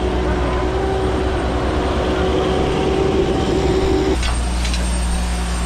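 An engine-driven machine running steadily with a low hum. A higher steady whine over it cuts off about four seconds in while the engine keeps running.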